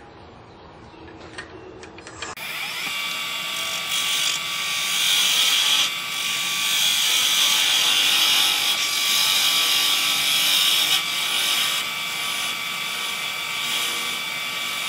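A turning tool is cutting into the end of a persimmon spindle blank spinning on a wood lathe at about 1400 RPM, facing the end off. A steady hissing cut starts suddenly about two seconds in, with a thin whine running through it.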